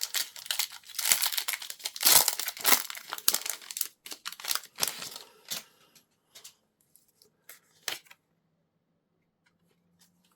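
Foil Pokémon booster pack being torn open and its wrapper crinkled: a dense run of tearing and rustling for about five seconds, then a few scattered light rustles that stop by about eight seconds in.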